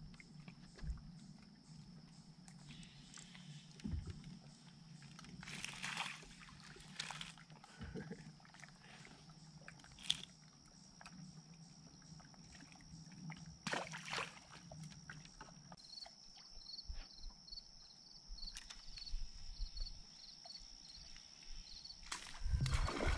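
Quiet open-water ambience with a faint steady high whine, scattered soft clicks and rustles from a spinning rod and reel being handled, and a few brief swishes.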